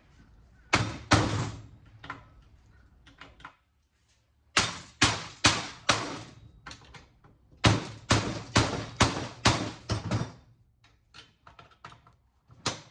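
Hammer blows on a chisel wedged into the steel casing of a cable box, prying the cover off: two strikes about a second in, then runs of quick metal-on-metal blows, and lighter clicks and rattles near the end.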